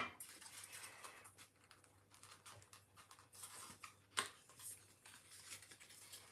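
Faint handling of thin scroll-sawn wooden pieces as the stacked leaves are pulled apart, with a light click at the start and another about four seconds in.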